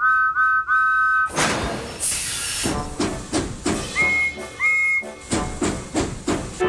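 Steam locomotive sound effects: three short two-note whistle toots, a burst of hissing steam, then steady chuffing at about three puffs a second. Two higher two-note whistle toots come about four seconds in.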